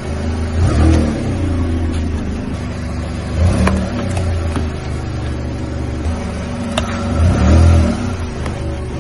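Car engine running at low revs as the car creeps forward, its pitch rising and falling a few times. Two sharp cracks of boxes and hard plastic crushed under a tyre come about three and a half seconds in and again near seven seconds.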